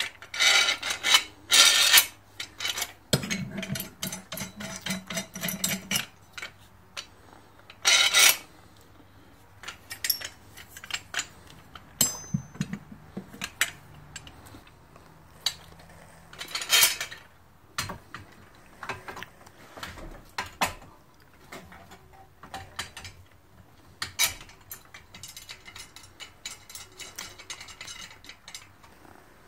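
Metal clanks, clinks and scrapes as a homemade metal pipe-frame valve spring compressor is handled and fitted onto an engine cylinder head. The knocks and rattles come irregularly, the loudest near the start, about eight seconds in and about seventeen seconds in.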